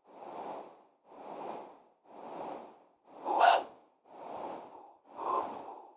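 Artificial breathing made in Pro Tools from filtered noise, shaped by a vowel filter, a filter gate and reverb, with six soft breath-like swells about one a second. The fourth swell is louder and brighter than the rest.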